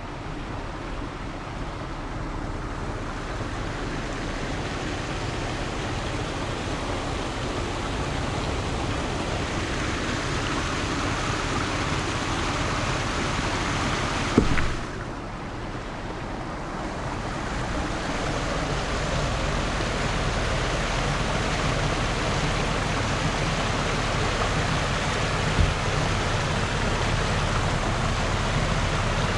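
Steady rush of a small creek cascading over rocks. About halfway through there is a click, then a brief dip before the rush builds again.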